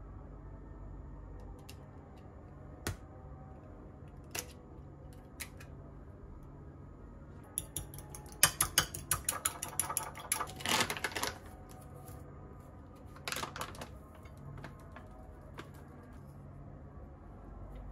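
Metal fork beating a raw egg in a ceramic bowl: a run of rapid clinks of fork on bowl for about four seconds in the middle, with a few single clicks before and a short burst of clinks after.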